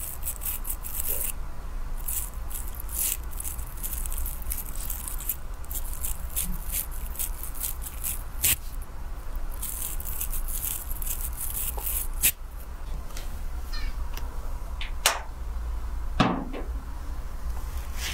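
Fingers rubbing and scratching through wet hair on the scalp during a salon hair wash: runs of quick scratchy rustles, with a few sharper clicks and a steady low hum underneath.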